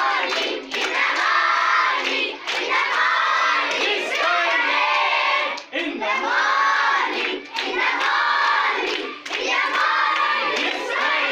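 A group of schoolboys singing a short line in unison, repeated about every second and a half, with hand clapping among the voices.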